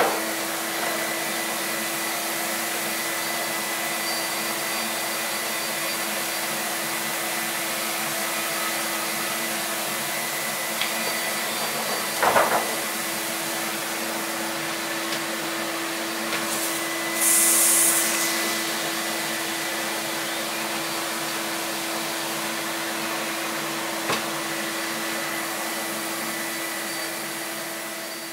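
Suction motor of a home-made screenprinting vacuum table running steadily with an even hum, holding the paper flat on the bed. A few light knocks and, about seventeen seconds in, a brief hiss.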